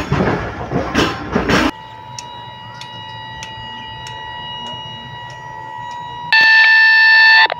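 Running noise of a moving passenger train heard from an open coach door, cut off abruptly about two seconds in. It gives way to a steady electronic tone with faint ticks about twice a second. Near the end the tone jumps to a loud electronic buzz for about a second, then drops back.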